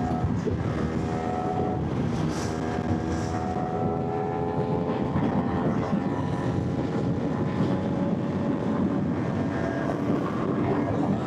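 Motorcycle engine running at a fairly steady cruise during a ride: an even engine note that drifts only slightly in pitch, over low wind and road rumble.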